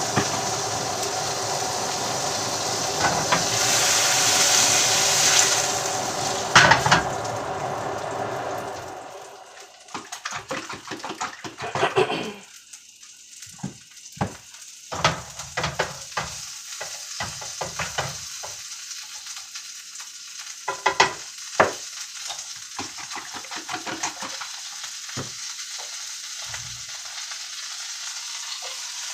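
A steady hiss with a low hum that stops about nine seconds in. After that, a utensil clicks and scrapes irregularly against a bowl while eggs are stirred or beaten.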